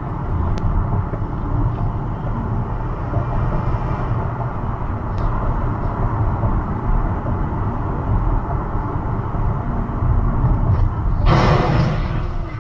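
Steady low rumble of road and engine noise inside a moving car. About eleven seconds in, a louder rushing noise joins for a little over a second, and the sound then cuts off abruptly.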